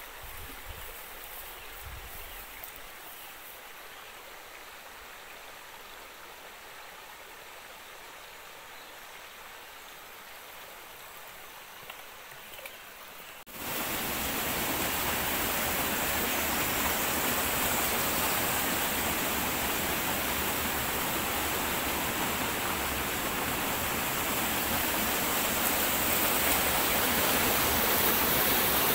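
Forest stream water: a quiet, steady flow at first, then about halfway through it jumps abruptly to a loud, steady rush of white water over rocks, growing a little louder near the end.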